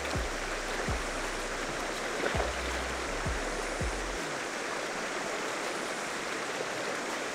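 Shallow river running over stones in a steady rush of water.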